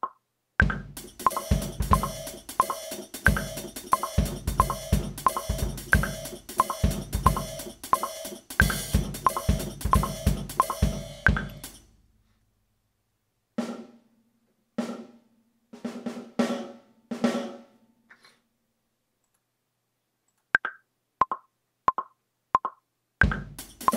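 A programmed hip-hop drum beat of kick, snare and hi-hats at about 90 bpm, playing back from a DAW with a slight echo. It stops about 12 seconds in and a few sparse pitched hits follow. Near the end the DAW metronome ticks four times as a count-in.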